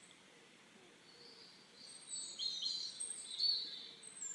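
Near silence for the first two seconds, then faint bird chirping in the background: short, high tweets that come and go.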